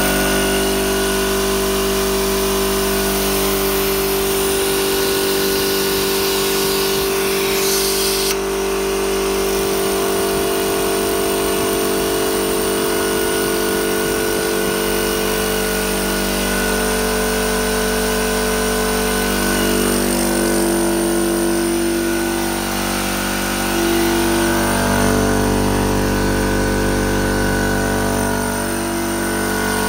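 SGS 50V 3 hp direct-drive v-twin air compressor switched on, starting at once and running steadily as it pumps up its empty 50-litre tank. A higher hiss on top cuts off about eight seconds in.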